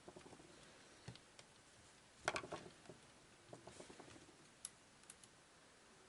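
A few irregular small clicks and taps as plastic parts of a clock radio's switch mechanism are handled and fitted, the loudest cluster about two seconds in.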